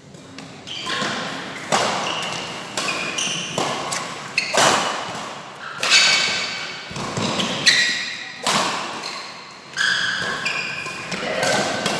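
Badminton rally: rackets striking the shuttlecock about once a second, with a hard smash about six seconds in, and shoes squeaking on the court mat between hits.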